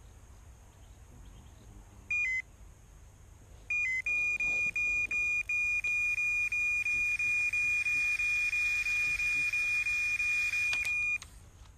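Electronic carp bite alarm sounding a run. It gives a short two-tone double beep about two seconds in, then from about four seconds a rapid string of high beeps that runs together into an almost continuous tone for about seven seconds before stopping abruptly. This signals a carp taking line from the rod.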